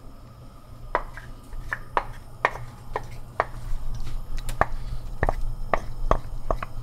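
Thick pomegranate and walnut stew coming back to the boil in a pot, with irregular pops of bursting bubbles about twice a second over a steady low hum.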